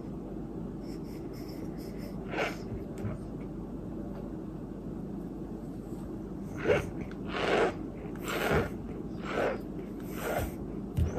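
A mouthful of white dirt (edible white clay) being chewed close to the microphone, with short crunches about once a second in the second half.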